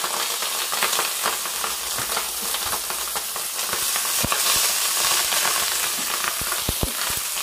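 Rice frying in a hot stainless-steel pan, a steady loud sizzle, stirred and tossed with a wooden spatula that gives scattered light scrapes and taps against the pan.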